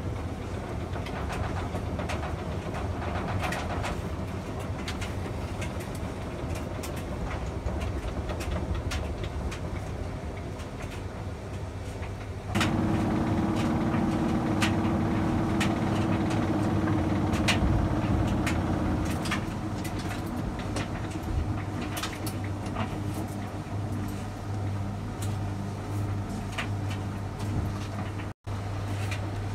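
Scattered light clicks and taps of a rubber valve cover gasket and metal valve cover being handled and fitted, over a steady low hum. The hum steps up suddenly about twelve seconds in.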